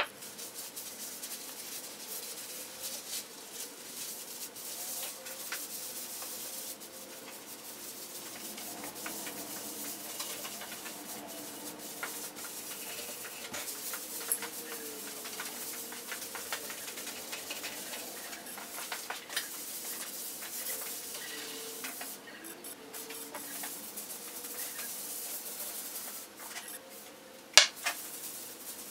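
A cloth rag rubbing liquid finish into a wooden tabletop: steady soft wiping with many small scrapes and clicks. A glass is set down on the wood at the start, and there is one sharp knock near the end.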